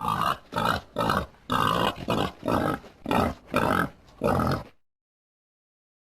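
Made-up Centrosaurus creature sound effect: a run of about nine short, rough animal-like calls in quick succession, stopping a little before the end.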